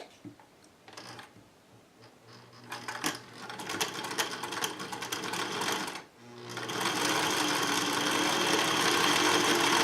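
Vintage Singer Touch and Sew sewing machine stitching a cotton square. A few small clicks come first, then it starts slowly about two seconds in, stops briefly near six seconds, and runs faster and louder to the end.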